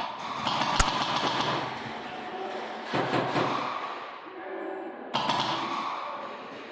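Rapid bursts of airsoft gunfire, fast strings of clicking shots that come in stretches.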